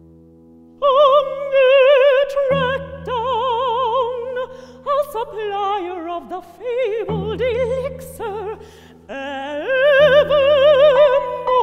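Operatic mezzo-soprano singing with a wide vibrato, over low piano chords that are struck three times and left to ring.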